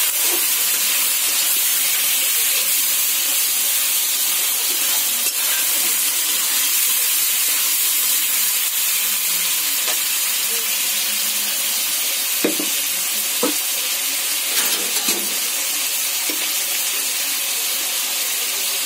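Chicken and onions sizzling steadily as they fry in a wok. A metal spatula scrapes through the food and knocks against the pan a few times a little past halfway.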